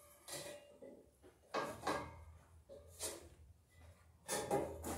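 Irregular handling knocks and clatters, four or five separate bursts, the loudest near the end.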